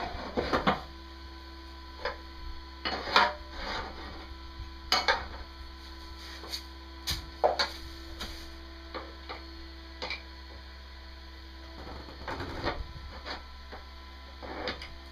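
Scattered knocks and clunks of metal parts and tools being handled and set in place, at irregular intervals over a steady low electrical hum.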